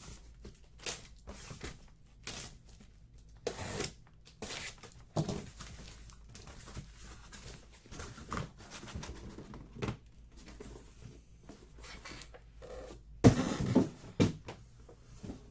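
Scattered handling noises from trading-card boxes and packaging: short cardboard knocks, taps and rustles at irregular intervals, with the loudest cluster about 13 seconds in.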